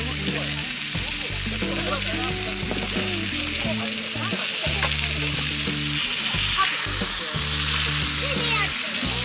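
A thick steak sizzling in hot oil in a frying pan, the sizzle growing louder near the end as the meat is pressed into the pan. Background music with a low bass line plays underneath.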